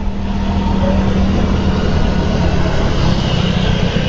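Motor scooter riding along a road: a steady engine hum under rushing wind and road noise on the camera microphone. The hum eases off about halfway through.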